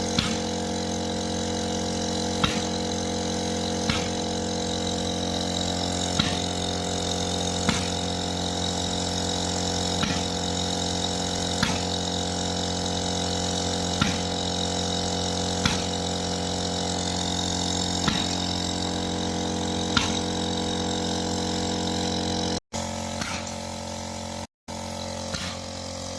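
Polyurea spray machine running steadily with a multi-toned mechanical hum and a sharp click about every two seconds, typical of a pump stroking back and forth. The sound cuts out briefly twice near the end.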